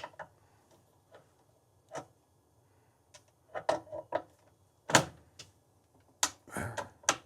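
Channel-lock pliers working a gas-line fitting on a water heater: a scattered series of sharp metal clicks and knocks, a few grouped together about halfway through and the loudest a little before five seconds.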